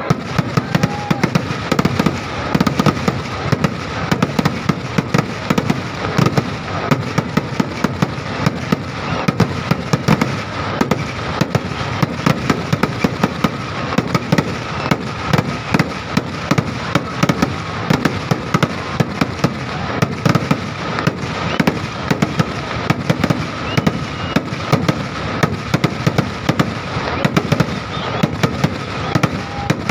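Fireworks barrage: a dense, continuous run of firework bangs and crackles, many a second, without a break.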